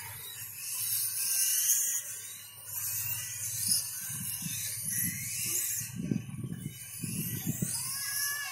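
1/5-scale RC motorcycles racing, their motors giving a high whine that rises and falls in pitch as they accelerate and slow through the corners.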